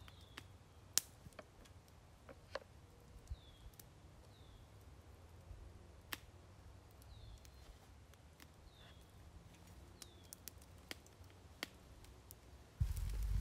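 Quiet forest ambience: scattered sharp clicks and snaps, and a small bird's short falling chirp repeated every second or so. Just before the end, louder rustling and knocks start up close.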